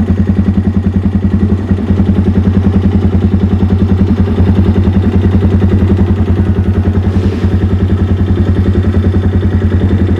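Vehicle engine running steadily, with a fast, even low throb.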